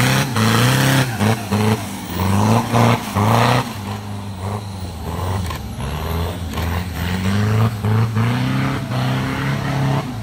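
Off-road competition 4x4's engine revving hard, its pitch repeatedly climbing and dropping as the throttle is worked through the stage, with a harsh rasping noise over it in the first few seconds.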